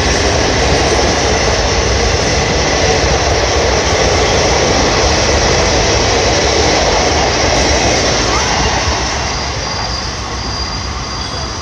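Coaches of an Indian Railways express passenger train running past at speed on the adjacent track: a loud, steady rush of wheels on rail that starts to fade about nine seconds in as the end of the train moves away.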